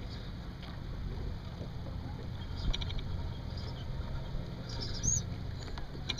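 Water splashing along the hull of a Sunfish sailboat under way, with steady wind rumble on the microphone. A quick run of small clicks comes a little under halfway, and a few short high squeaks come near the end.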